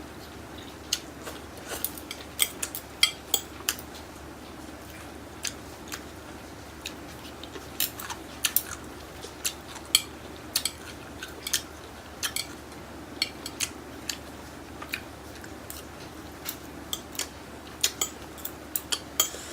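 Close-miked eating of Korean fire noodles: many sharp, irregular clicks and taps, several a second at times, over a faint steady hum.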